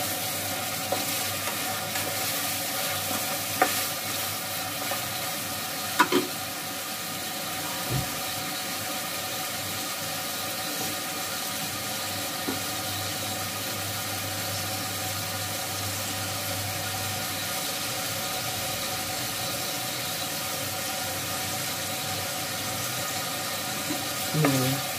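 Potatoes and meat sizzling as they fry in oil in an aluminium pot, steady throughout, with a spatula knocking against the pot a few times in the first six seconds.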